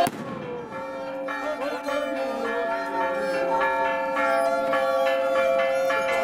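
Church bells ringing in repeated strikes over a steady held musical tone.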